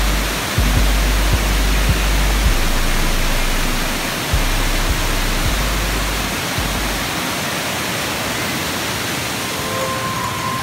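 Waterfall water rushing, a steady loud noise, with wind buffeting the microphone in deep rumbles and thumps for the first several seconds. Background music with a few held notes comes in near the end.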